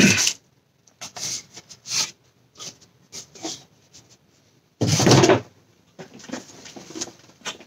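Cardboard packaging boxes being handled and set down on a wooden tabletop: scattered light knocks and taps, then one louder, longer knock about five seconds in.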